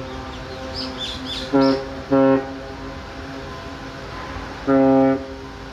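A horn sounds two short blasts about a second and a half in, then one longer blast near the end, all on the same low pitch. A few short bird chirps come about a second in, over a steady background hum.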